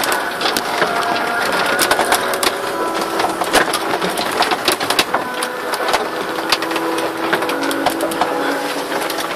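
Wind buffeting a phone's microphone and water rushing past a sailboat's hull under way, heard as a dense crackling noise throughout. A few faint steady tones hold underneath and shift pitch every few seconds.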